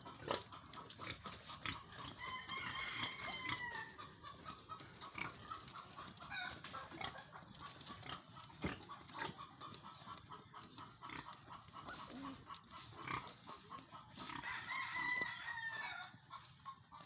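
Newborn piglets squealing and grunting in quick short calls, with two longer, wavering squeals, one about two seconds in and one near the end.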